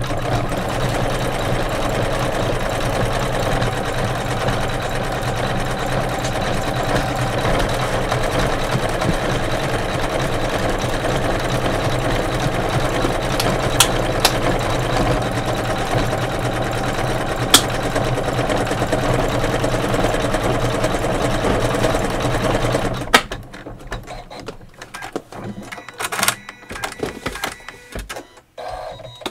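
Computerized embroidery machine running steadily as it sews a decorative stitch around the centre of an appliqué flower. It stops abruptly about three-quarters of the way through, after which only a few light clicks and knocks are heard.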